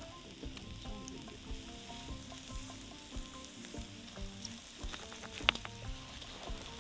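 Goat meat sizzling on fire-heated stones over charcoal: a steady hiss with scattered small pops and crackles, a sharp crackle about five and a half seconds in.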